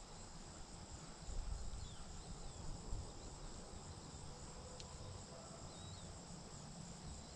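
Faint open-field ambience: a steady high insect trill over a low, uneven rumble, with a couple of faint short chirps.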